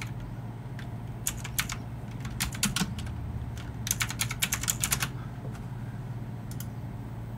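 Keyboard typing: short runs of quick key clicks about a second in, near three seconds in, and again from about four to five seconds in, over a low steady hum.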